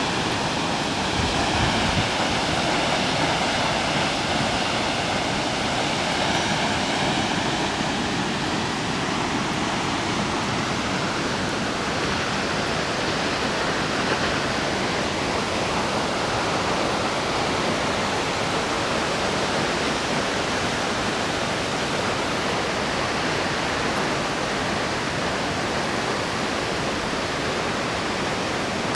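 Steady, unbroken rushing of Lingmala Falls' water.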